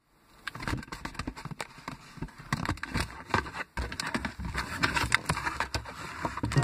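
Cardboard box flaps being handled and pulled open: an irregular run of rustling, scraping and knocks, heard from inside the box.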